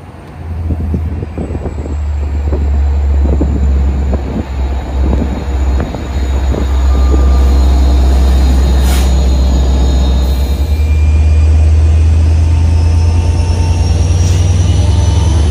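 Long Island Rail Road diesel push-pull train of bi-level coaches running past, its low diesel engine drone building steadily louder. Sharp wheel clicks over the rail joints come in the first few seconds. Near the end the EMD diesel locomotive passes close by with its engine running loud and a rising whine.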